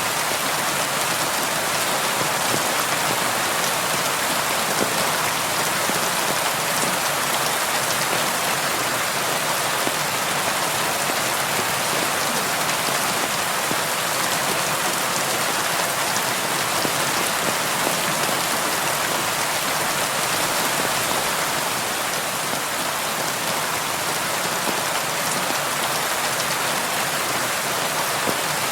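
Heavy rain falling, a steady, even hiss of countless drops that holds at the same level throughout.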